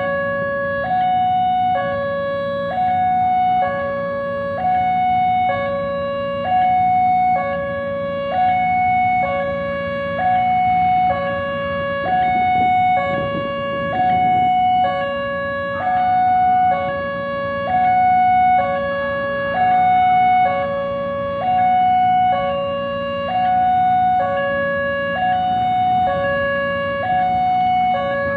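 Railway level-crossing warning siren sounding a two-tone high-low alarm, switching between its two notes about once a second, over a steady low hum.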